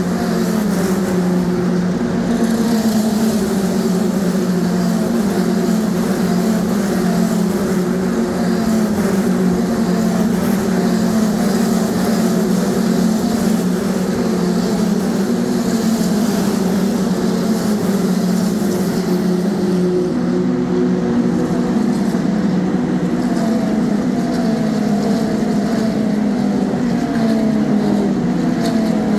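Race car engines running at the circuit: a steady, loud drone with short falling sweeps in pitch that repeat about once a second.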